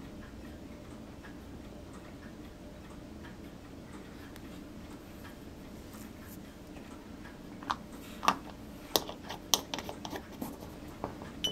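Faint, regular ticking over a low room hum, then near the end a quick run of sharp clicks and taps as small hobby tools and a paint jar are handled on a workbench.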